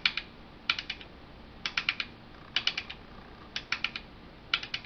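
Stiff rotary selector switches on a Marantz 3650 stereo preamp being turned back and forth, clicking through their detents in quick runs of three or four clicks about once a second, to work contact cleaner into corroded contacts.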